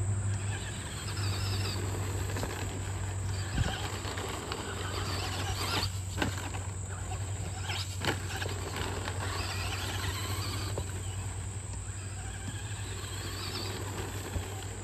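Traxxas Slash 2WD RC truck driving on a dirt track, its electric motor whining in swells as the throttle is worked, with tyres on loose dirt and a few sharp knocks. Insects buzz in the background.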